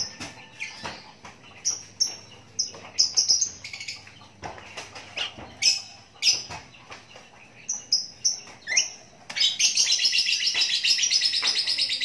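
Young Javan myna calling: scattered short, high chirps and squawks, then, about three-quarters of the way in, a long, fast chattering run of repeated notes that is the loudest part.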